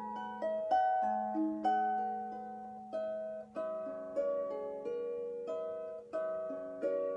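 Irish harp played by hand: a slow melody of plucked notes and small chords, each note ringing on and fading over a sustained low note.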